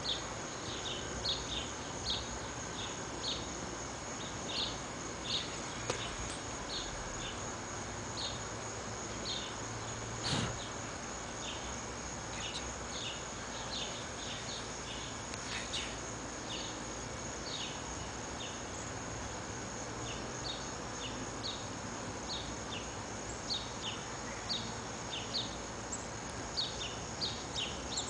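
Outdoor ambience: a steady, high-pitched insect drone under many short, high chirps from a small bird, repeated at irregular intervals. A single sharp knock about ten seconds in.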